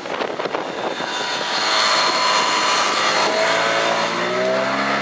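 Small motorboat under way: its engine running, with a rush of water and wind past the hull. A little after halfway the engine pitch rises as the boat picks up speed.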